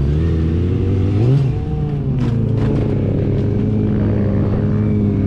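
Sport motorcycle engine running during a stunt: it revs briefly about a second in, then settles to a steady idle. A few sharp scraping clatters come around the middle.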